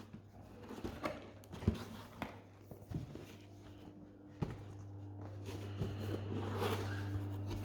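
A keyboard's cardboard box being opened by hand: scattered taps, clicks and rustling of the packaging. A low steady hum comes up from about halfway and runs under the handling.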